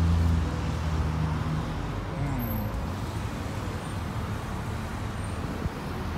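Street traffic: a vehicle engine hums close by, strongest for the first two seconds and then fading, over a steady wash of traffic noise.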